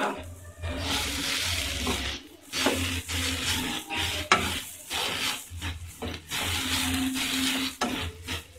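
Chopped cabbage and grated carrot being stirred and tossed in a nonstick frying pan with a slotted spatula, a rustling, scraping noise in repeated strokes with short pauses between them, with a light sizzle of the vegetables frying.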